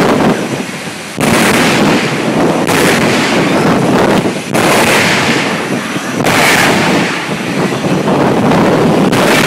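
A jet car dragster's afterburning jet engine blasting its exhaust in loud, noisy surges that come and go every second or two.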